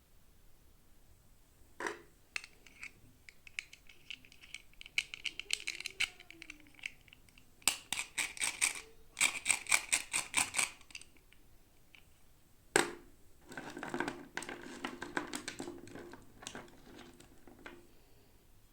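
Toy packaging being handled and opened by hand: rapid runs of crackling and scratching, with sharp clicks or snaps. The busiest crackling comes a little before the middle, then a loud snap followed by a few seconds of rustling.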